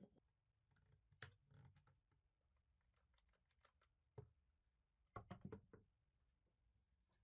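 Near silence with faint, scattered small taps and clicks, including a quick run of several about five seconds in.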